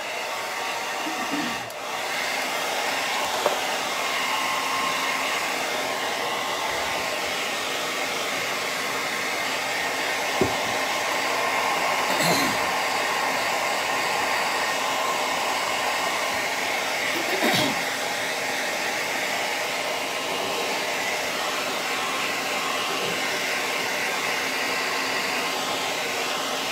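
Handheld hair dryer blowing steadily, drying a freshly brushed-on gloss clear coat on a painted ceramic piece.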